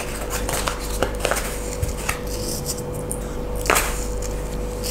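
Light scattered clicks and taps of kitchen handling: a cardboard salt carton being handled as pinches of salt are taken, near a stainless steel bowl with a spoon in it. One sharper knock comes about three and a half seconds in, over a faint steady hum.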